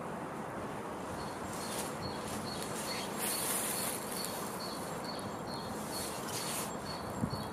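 Outdoor ambience: a steady hiss with a faint, high chirp repeated two to three times a second, starting about a second in, and brief airy rushes around the middle and near the end.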